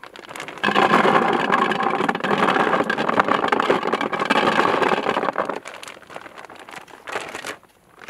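Hard boilies (round carp baits) poured from a plastic bag into a plastic bucket: a loud, dense rattle lasting about five seconds, followed by fainter rustling of the plastic bag.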